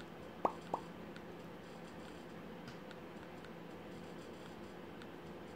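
Two soft clicks about a quarter second apart, then faint scattered ticks over a low steady hum, while a TV menu is scrolled.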